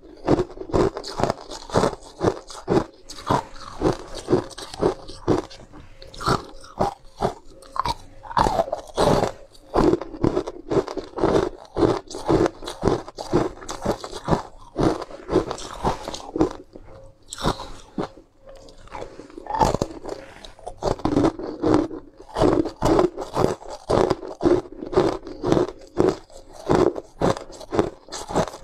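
A mouth biting and chewing ice cubes up close, a steady run of sharp crunches several times a second.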